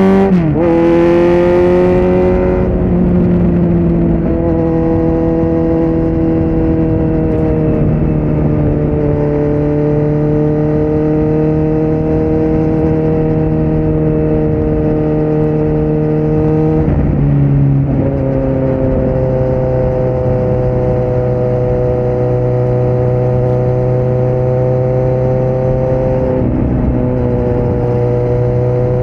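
Kawasaki Z900's inline-four engine through an open Yoshimura muffler and Delkevic headers with no dB killer, pulling up in revs just after the start and then running at a steady cruise. About 17 s in the engine note drops abruptly to a lower pitch, as with a gear change, and it shifts slightly again near the end.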